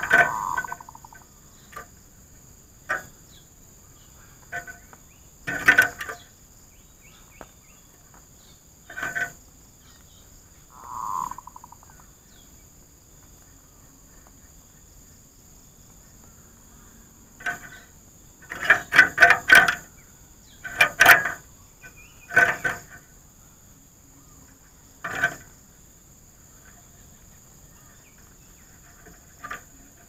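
Zebra doves cooing: scattered bursts of quick staccato notes, thickest between about 18 and 23 seconds in, with a single rounder coo at the start and another about 11 seconds in.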